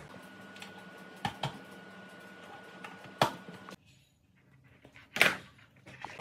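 A few sharp clicks and knocks over a steady hum. The hum cuts off suddenly a little past halfway, and one louder knock follows about five seconds in.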